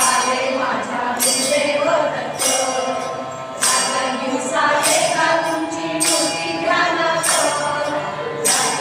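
Group of women singing a Marathi devotional bhajan to a harmonium, clapping in time, with a strong beat accent about every 1.2 seconds.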